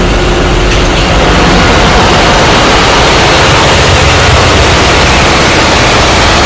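Loud, steady machinery noise of a ship's engine room running, an even hiss across the range over a low hum.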